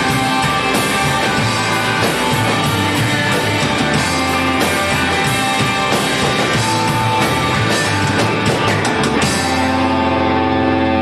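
Rock band playing live with drum kit and electric guitars. About nine seconds in the drums and cymbals stop and a held chord rings on, closing out the song.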